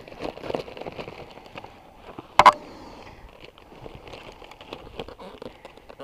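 Broken foam model-plane wreckage being handled, with irregular crackling and rustling of the foam and parts, and one sharp knock about two and a half seconds in.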